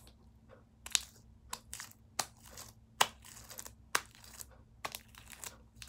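Sticky gum-and-shaving-cream slime being picked and pulled off fingers: irregular sharp crackles and snaps, about a dozen, with softer crinkling between them.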